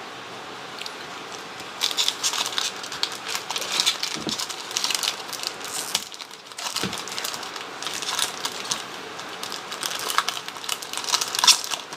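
Foil trading-card pack wrapper crinkling as it is handled and torn open, with cards rustling, in two spells with a short lull about halfway through.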